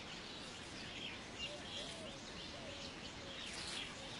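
Weaver birds chattering: many short, scratchy chirps overlapping, with a few lower sliding notes in the middle.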